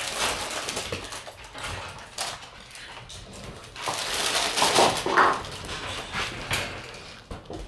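Shiba Inu puppies play-fighting, with paws and bodies scuffling on the floor and towels. A louder stretch with short puppy cries comes about four to five seconds in.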